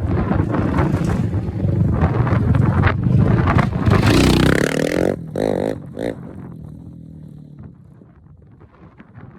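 Polaris Outlaw 500 ATV engine revving, its pitch climbing about four seconds in with a loud burst around five seconds. The engine sound then falls in pitch and fades away.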